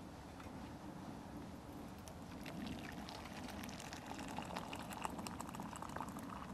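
Water poured from a small kettle into a cup, a steady splashing pour that gets a little fuller after a couple of seconds. A small wood fire crackles with scattered snaps alongside it.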